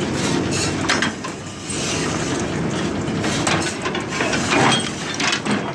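Old Ford 501 square baler running empty in hay mode, its mechanism clattering steadily with sharp knocks every second or so as the plunger and needles cycle. The owner believes the needles are in time.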